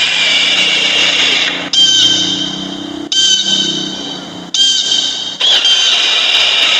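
A non-musical sound-effect ringtone: a loud, noisy hiss with a high tone running through it, starting over abruptly every second or two.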